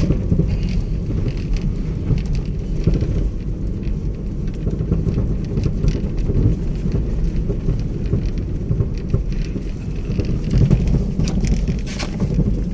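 Steady low rumble of a vehicle travelling over a rough road, with scattered crackles and knocks throughout and a sharper knock about twelve seconds in.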